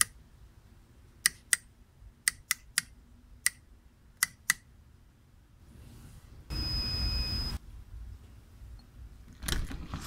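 Eight sharp knuckle knocks tapped in a set rhythm of two, three, one and two on a door-mounted knock sensor, entering a secret knock code. About two seconds later a small servo motor whirs for about a second with a steady whine, turning the deadbolt to unlock the door, and near the end the doorknob rattles as it is grabbed.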